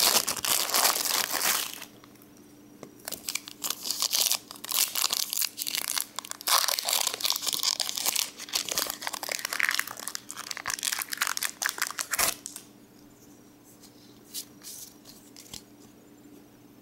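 Cellophane wrapping crinkling, then, after a short pause, the foil wrapper of a Pokémon booster pack crinkling and tearing open for several seconds. The noise stops about three quarters of the way through, leaving only light handling of the cards.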